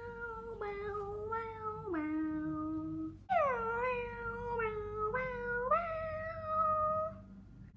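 A slow solo melody of long held notes, each sliding down into its pitch, moving up and down in steps, with a short break about three seconds in.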